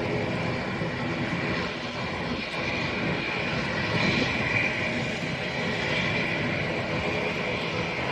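Airliner engines running steadily at an airport: a high whine over a broad, even rumble.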